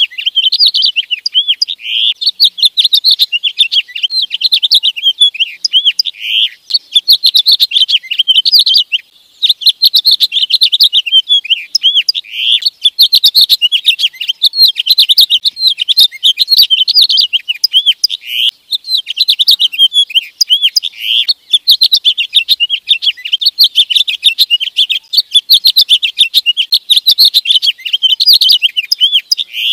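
A finch singing a long, fast, warbling song of quick high chirps and trills, with two brief pauses, about nine and eighteen seconds in.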